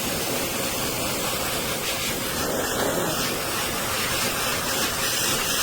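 High-velocity pet hair dryer blowing air with a steady rushing hiss.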